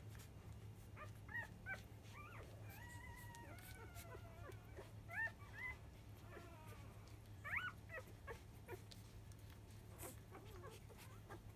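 Five-day-old Labrador Retriever puppies squeaking and whimpering while they nurse: short high squeaks, a longer wavering whine a few seconds in, and more scattered squeaks later.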